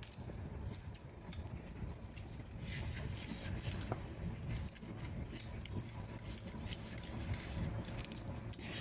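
A person chewing food, with many small wet clicks and smacks, and two louder noisy stretches about three and seven seconds in.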